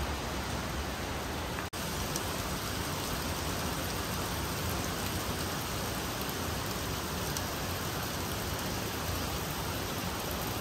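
Steady rush of water from the Stillaguamish River, an even hiss with no let-up, broken for an instant just under two seconds in.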